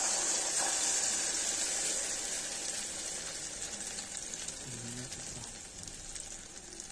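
Beaten egg mixture hitting hot oil in a kadhai and frying: a dense sizzle, strongest at first and slowly dying down as the egg sets.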